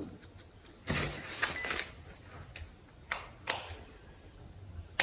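Small plastic clicks and handling noise from a blood glucose meter and lancing pen being prepared for a finger-prick test: a rustle about a second in, two short sharp clicks just after three seconds, and another sharp click at the end.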